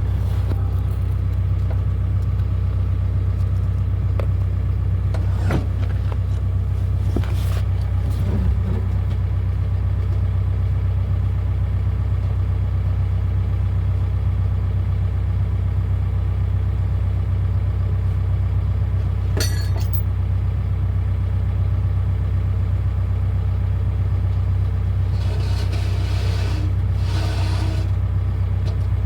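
Excavator's diesel engine running steadily with a low drone, with a few short knocks and a brief clatter near the end.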